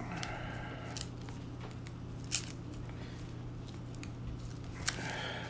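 Hands pressing a replacement screen down onto an iPhone 8 Plus frame to seat it in its adhesive: a few short sharp clicks and some soft rustling, over a steady low hum.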